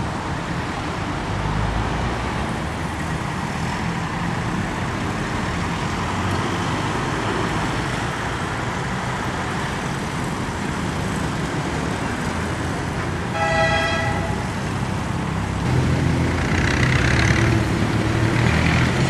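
Steady street traffic noise. A car horn sounds briefly about two-thirds of the way through, and the traffic gets louder near the end.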